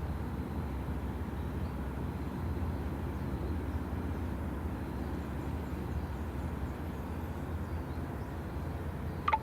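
A steady low rumble of outdoor noise, with a brief high chirp near the end.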